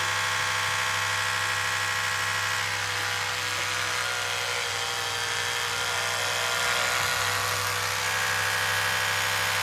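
A rotating round-head electric toothbrush buzzing steadily while a cat bites and licks the spinning brush head. The tone shifts slightly a couple of times as the head's load changes.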